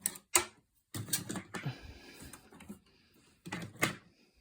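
Sharp plastic-and-metal clicks and knocks from handling RAM modules and the memory-slot retaining clips inside an open Power Mac G5: a few single clicks, a scattered cluster about a second in, and two sharp clicks near the end.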